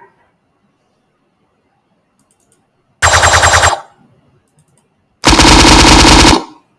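Two loud bursts of a rapid-fire rattling sound effect, like machine-gun fire. The first lasts a little under a second, about three seconds in; the second lasts just over a second, near the end.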